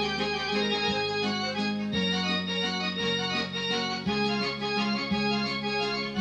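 Portable electronic keyboard played with an organ-like voice: a held, sustained melody over chords, with the low note moving on about once a second.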